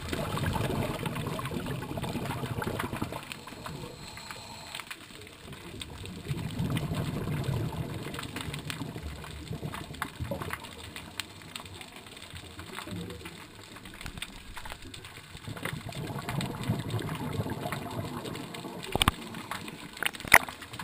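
Muffled underwater rush of a scuba diver's exhaled bubbles heard through the camera housing, swelling and fading in long surges every several seconds. Two sharp knocks near the end.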